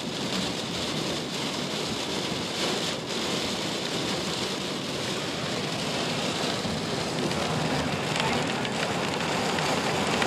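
Heavy rain falling in stormy weather: a steady hiss with many fine ticks.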